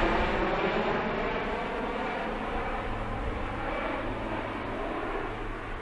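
A formation of PZL-130 Orlik turboprop trainers passing overhead and drawing away. Their engine and propeller drone is a dense chord of tones that falls slightly in pitch and fades steadily.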